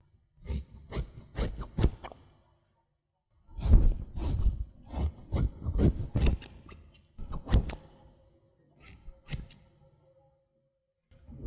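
Haircutting scissors snipping close to the microphone in quick runs of many snips, three runs with short pauses between them, as a binaural ASMR haircut sound effect.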